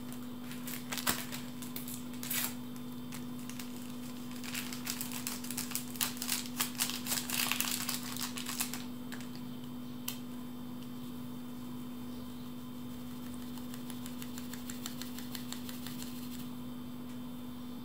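Plastic mesh sieve being tapped and shaken by hand to sift flour with baking powder into a bowl: a quick run of light clicks and rattles, densest in the middle, then sparser. A steady low hum runs underneath.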